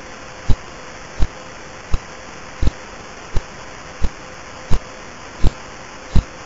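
Radio signal of pulsar B0329+54, received by the Lovell telescope at Jodrell Bank and played as sound: a sharp thump about every 0.7 s, once per turn of the spinning neutron star, over a steady hiss of receiver noise.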